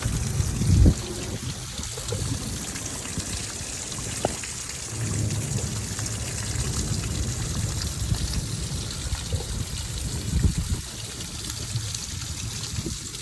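Heavy rain falling steadily, with strong gusts of wind buffeting the microphone, the strongest about a second in and again around ten seconds.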